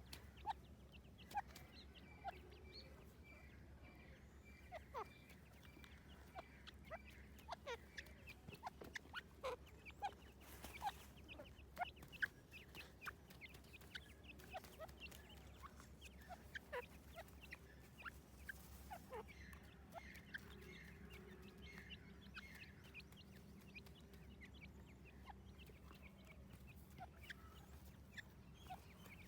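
Birds calling: many short chirps and clucks, each a quick sweep in pitch, scattered irregularly throughout over a faint steady low hum.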